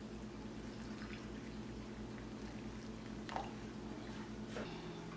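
Water poured from a stainless-steel kettle into a small ceramic bowl of sliced scallion, ginger and Sichuan peppercorns, with a couple of light drips or taps near the end. A steady low hum runs underneath.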